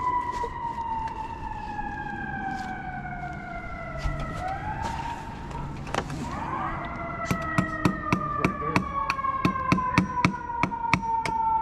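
An emergency vehicle's siren wailing: its pitch slides slowly down, swings back up about four to seven seconds in, then slides down again. From about seven seconds in, a close run of sharp taps, about four a second, comes over it.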